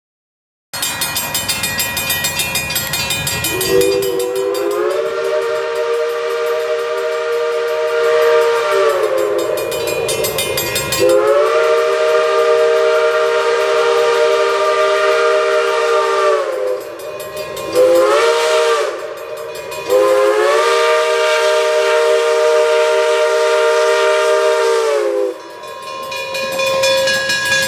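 Logging three-chime steam whistle on a 4-4-0 steam locomotive blowing long, long, short, long, the grade-crossing signal. Each blast slides up in pitch as it opens and sags as it closes, over the steady hiss and running noise of the approaching engine.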